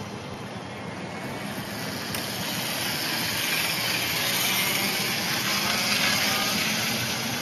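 2011 Zero electric motorcycles riding past: a steady hiss of tyres and wind with no engine note, swelling about two seconds in, loudest around four to six seconds, then easing.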